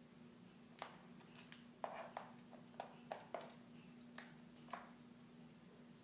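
Cockatiels hopping on a carpet-tiled floor: about ten light, irregular taps as their feet land, over a faint steady hum.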